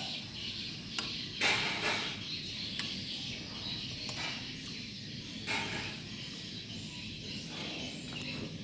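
Metal spoon scooping in a ceramic bowl of soup: a sharp click about a second in, then a few short scrapes and light clinks over a steady hiss.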